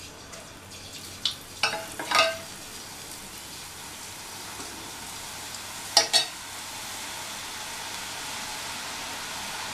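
Batter drops falling through a perforated boondi ladle into hot oil in a kadai, sizzling as they fry; the hiss grows steadily louder as more drops hit the oil. A few short clicks sound near the start and a sharper pair about six seconds in.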